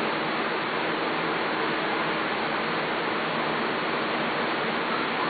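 Steady, even hiss of background noise; no barks, whines or other distinct sounds stand out.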